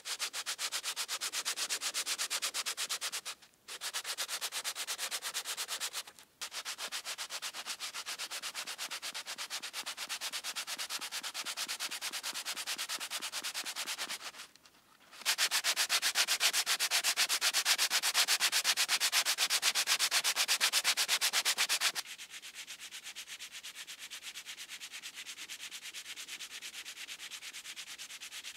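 Hand-sanding rust off the steel blade of a vintage cleaver: rapid, even back-and-forth scraping strokes. The strokes stop briefly three times, are louder for several seconds after the longest pause, and turn quieter over the last few seconds.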